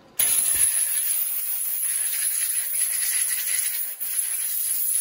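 Compressed-air blow gun blasting a loud, steady hiss that distorts the microphone, clearing grinding dust. It starts just after the beginning and keeps going.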